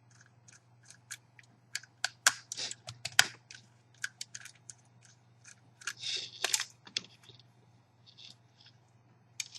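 Small screwdriver and crimped wire connectors being handled at the screw terminals of a CCTV power jack or balun: irregular light clicks and ticks with a few brief scrapes, over a faint steady hum.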